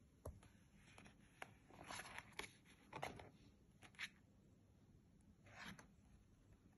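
Faint handling of a picture book's paper flap: a scatter of soft clicks and brief paper rustles as a finger lifts the flap.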